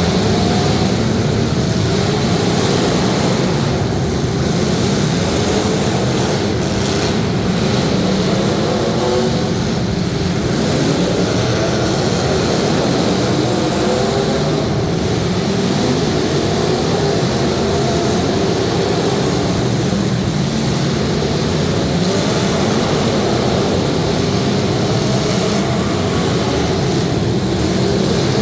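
Several demolition derby cars' engines running and revving together, their pitches rising and falling.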